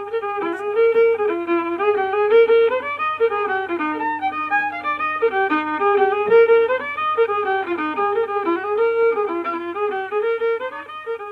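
Background music: a fiddle tune, a single melody moving quickly from note to note.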